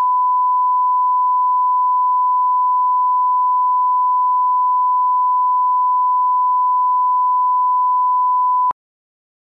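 1 kHz line-up test tone that accompanies broadcast colour bars: a single steady pure tone that cuts off suddenly near the end.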